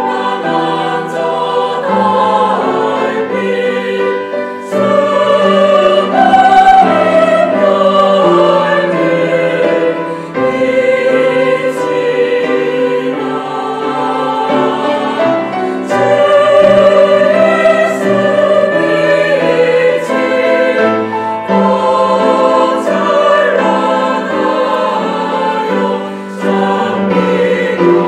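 Mixed church choir of men and women singing a Korean hymn in harmony, accompanied by piano and strings.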